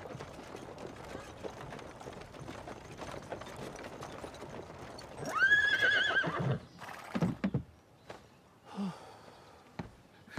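Horses' hooves clip-clopping amid the clatter of a marching troop. About five seconds in, a horse whinnies loudly with one long, wavering call. A few scattered thuds follow.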